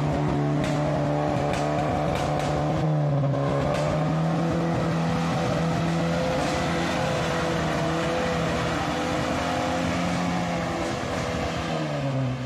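Toyota Hilux pickup's engine working hard at high revs as the truck ploughs through deep mud, its pitch dipping briefly about three seconds in and again near the end. A few sharp knocks sound in the first couple of seconds.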